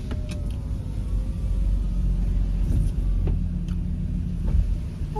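Engine and road rumble heard inside the cab of a large van rolling slowly forward, with a faint steady whine above it that dips slightly in pitch.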